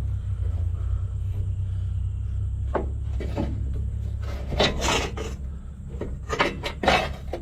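Short scraping and rubbing sounds from hands working wires and fittings loose on the combine's wiring, several rasps in the second half, over a steady low hum.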